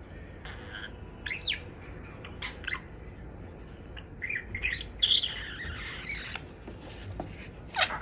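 Budgerigar chirping: several short, separate chirps with pauses between them, then a louder falling sound right at the end.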